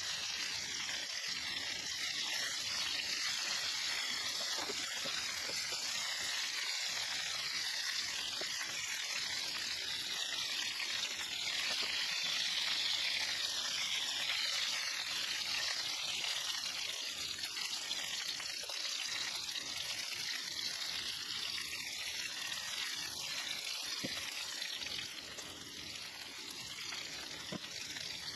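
Flour-and-cornstarch-coated chicken pieces sizzling steadily as they shallow-fry in canola oil in a cast iron skillet, easing slightly near the end.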